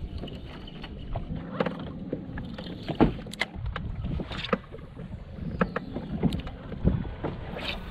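Water lapping and slapping against a bass boat's hull, with scattered sharp clicks and knocks, the loudest about three seconds in.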